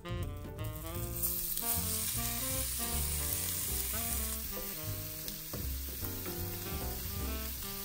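Raw shrimp sizzling in hot butter in a cast-iron skillet as they are tipped in, the sizzle building about a second in and holding steady, then stirred with a wooden spoon. Background music plays throughout.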